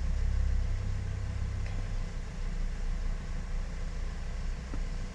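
Car engine idling: a steady low rumble that eases slightly under a second in.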